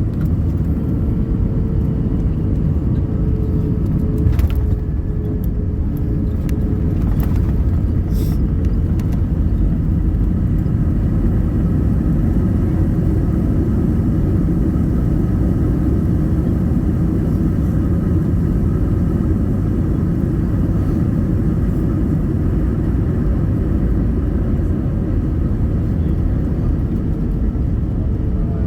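Steady low rumble of an airliner cabin during landing, with a brief knock about four seconds in and a steady hum that fades away a few seconds later.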